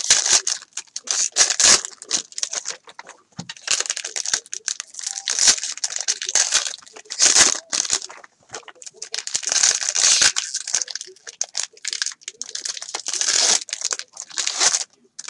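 Foil wrappers of trading-card packs being torn open and crinkled by hand, in repeated bursts of rustling with short pauses between.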